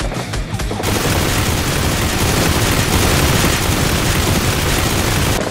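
Dense, continuous gunfire sound effect, a sustained burst of rapid shots that starts about a second in and cuts off just before the end, drowning out the background music.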